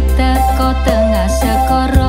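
Background music: a song with a steady, heavy bass and a gliding melody line.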